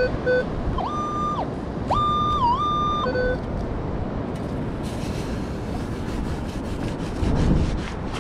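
Metal detector signalling a buried target: short electronic beeps, then two held high tones, the second dipping briefly in pitch. After that a long-handled sand scoop is pushed into wet beach sand, giving gritty crunching and scraping with a heavier thump near the end.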